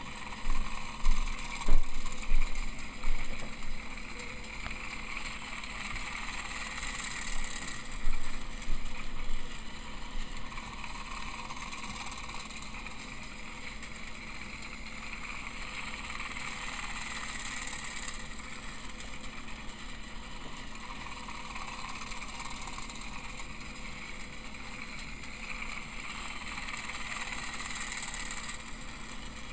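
Tomy Plarail Emily battery-powered toy train running on plastic track: its small motor and gears whir steadily with the wheels rattling, the sound swelling and fading about every ten seconds as it laps the oval. Sharp loud knocks come in a cluster one to three seconds in and again eight to ten seconds in.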